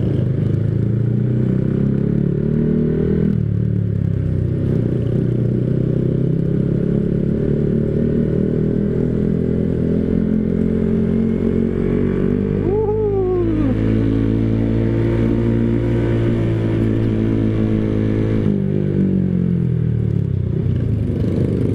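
Yamaha motorcycle engine running steadily under way, heard from on the bike. Its note shifts pitch about three seconds in and again near the end. A short falling tone sounds just past halfway.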